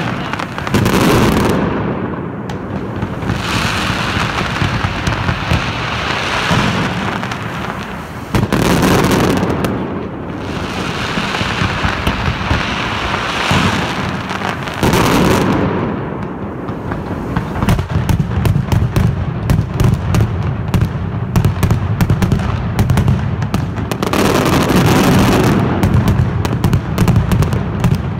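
Mascletà barrage of masclet firecrackers detonating in dense, continuous rapid fire that swells in waves. From about two-thirds of the way in, the bangs come as a fast rattle of separate cracks, several a second.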